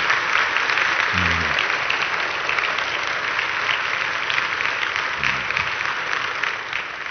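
Audience applauding, starting abruptly, with a short call from someone in the crowd about a second in and again about five seconds in.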